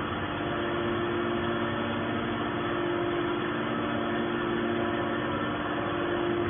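Small hydraulic scrap metal baler running, its motor-driven hydraulic pump giving a steady hum with a few held tones and no strokes or knocks.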